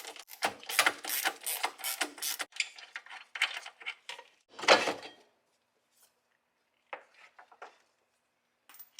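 Hand ratchet with a 21mm socket clicking in quick runs as the rear caliper bracket bolts are loosened, followed about five seconds in by a single louder clunk, then a few faint clicks.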